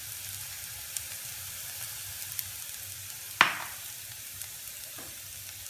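Softened onions with spice powders and ginger-garlic paste sizzling in oil in a steel pan, a steady hiss. A sharp clink about halfway through and a lighter one near the end.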